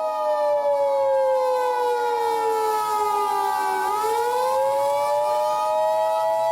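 Emergency Alert System attention signal, a steady two-tone beep, sounding over an outdoor warning siren. The siren's wail slides slowly down in pitch for about four seconds, then climbs back up.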